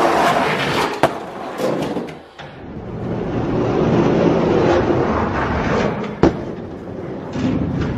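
Two die-cast toy monster trucks rolling down a plastic orange track: a continuous noise of small wheels on the track, with a sharp click about a second in and another about six seconds in.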